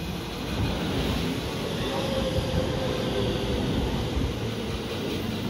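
JR West 223 series electric train running into the station alongside the platform: a steady rumble of wheels on the rails, growing louder about half a second in, with a faint steady hum above it.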